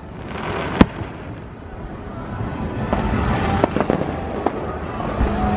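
Fireworks going off: crackling, then one loud sharp bang about a second in, followed by several smaller pops a few seconds later.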